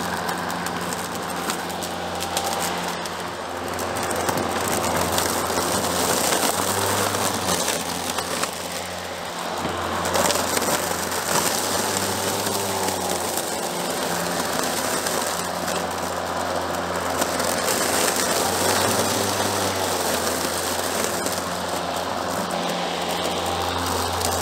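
Craftsman 2x20V cordless electric lawn mower running steadily as it is pushed through grass, its blade cutting.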